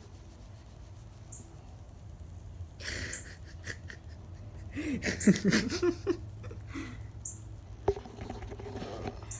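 Cat fur and a petting hand rubbing against the camera's microphone, rustling in bursts about three seconds in and again around five to six seconds, with a few short low vocal sounds among them. A single sharp click comes near the end.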